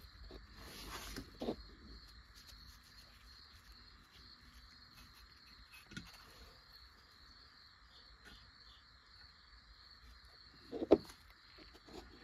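Quiet handling sounds as filler putty is worked onto a die-cast metal toy tractor part with a wooden stick: faint scrapes and a few light taps. A sharp click about eleven seconds in is the loudest sound. A faint steady high tone runs in the background.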